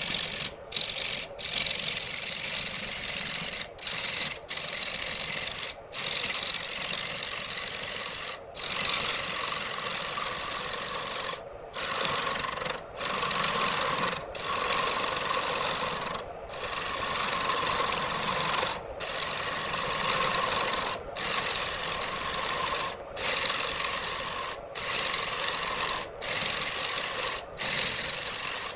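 A turning tool cutting into wood spinning on a lathe, a continuous rasping scrape broken by short pauses every one to three seconds, with a faint steady hum underneath.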